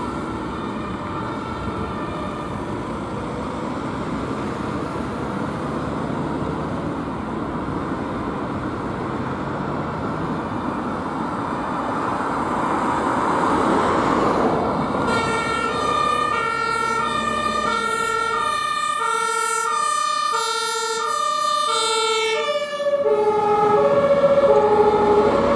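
Fire engine two-tone siren (German Martinshorn) over road traffic and engine noise. From about halfway in, the siren is loud and alternates high and low tones about every second. Near the end it drops in pitch as the vehicle passes.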